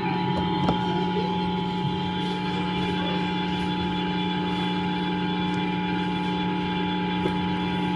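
Emergency Alert System two-tone attention signal: two steady, piercing tones sounding together, held for about nine seconds over a low steady hum. It signals an emergency alert about to be broadcast, here an Amber Alert.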